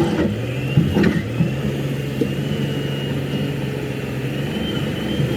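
An engine running steadily with a low hum, a thin high whine above it, and a sharp knock about a second in.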